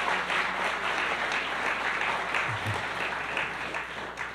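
Auditorium audience applauding a guest who has stood up, the clapping thinning out and dying away near the end.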